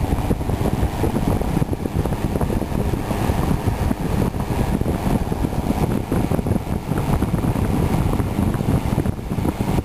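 Vintage Westinghouse 12-inch box fan with a plastic blade, running on high speed: a steady, loud rush of moving air that buffets the microphone.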